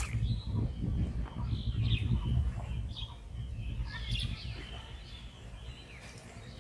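Small birds chirping in short, scattered high calls over a steady low rumble.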